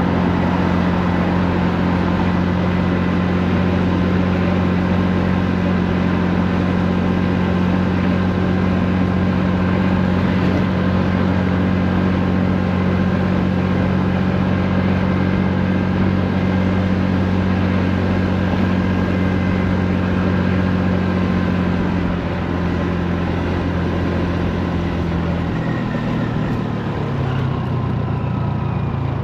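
Honda Navi's small single-cylinder four-stroke engine running steadily while riding, with road and wind noise. Its pitch drops in steps over the last several seconds as it eases off.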